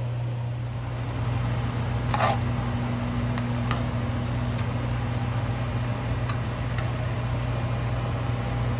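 Steady low hum of a running kitchen appliance fan, with a few light clicks and knocks of kitchen utensils about two, four and six seconds in.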